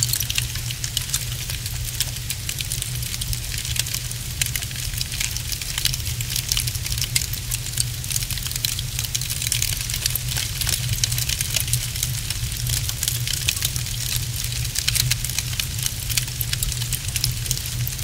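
Wood fire crackling in a fireplace: a dense, irregular stream of small sharp crackles and pops over a low steady rumble.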